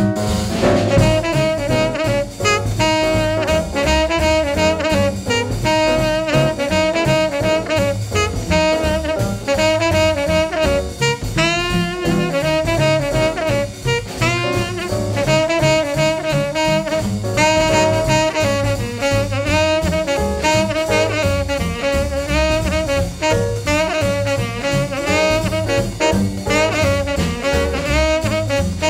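Background jazz music: a brass-led melody with sliding notes over bass and drums.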